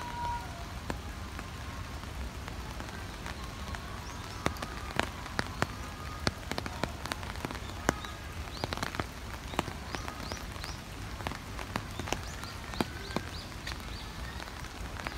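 Rain falling on a wet concrete floor and pool, with irregular sharp drops tapping close by, a few of them much louder than the rest.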